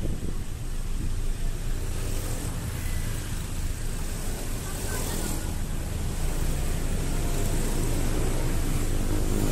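Road traffic heard from a moving vehicle: a steady low engine and tyre rumble with wind noise on the microphone. An engine note becomes clearer and rises slightly near the end.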